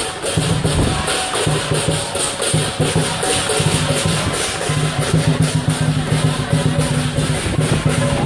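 Chinese lion dance percussion: a large drum with crashing cymbals, beating a rapid, steady rhythm.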